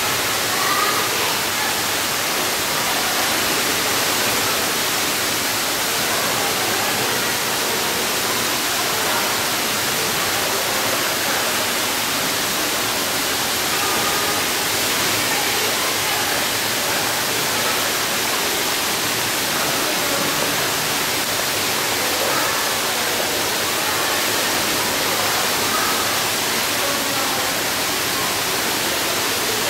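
Indoor swimming pool ambience: a steady, even rush of water noise filling the pool hall, with no clear separate strokes or splashes standing out.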